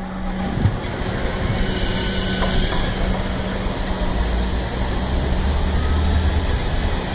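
Fire truck's diesel engine running steadily, with a hiss of machinery over it; a deeper rumble swells in for a couple of seconds past the middle.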